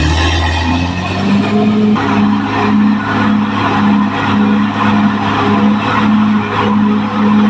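Caterpillar D6R XL bulldozer working: a steady diesel drone with the clatter of its tracks, and a tone that pulses about twice a second as it moves.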